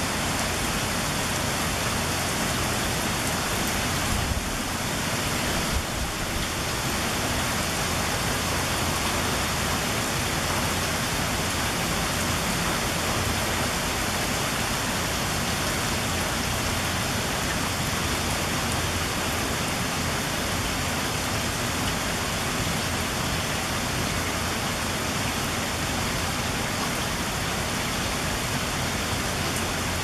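Heavy rain falling steadily, a dense, even hiss.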